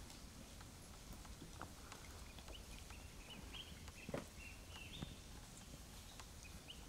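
Faint clicks and crunches of red pandas eating apple and carrot pieces on wooden boards, with the loudest knock about four seconds in. Faint short high chirps come in from about halfway.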